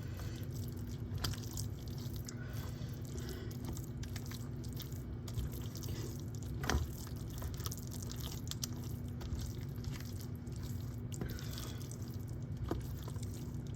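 Wet cornbread dressing being stirred in a bowl to mix in the eggs: soft squishing with occasional light clicks, over a steady low hum.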